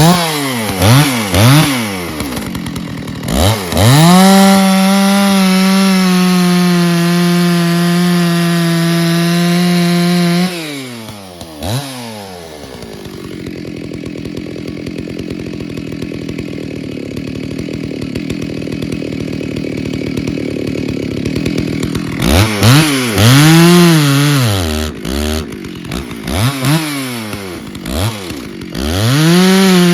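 Stihl 064 two-stroke chainsaw revved in quick throttle blips, then held at full revs for several seconds before dropping back. It runs quieter through the middle, then is blipped several times and held at full revs again near the end.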